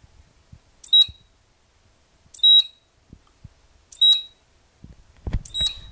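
Tektronix 2236 oscilloscope giving a short high beep with a click at its start, four times at about one-and-a-half-second intervals, as it keeps switching itself on and off from a power-supply fault. A low thump comes near the end.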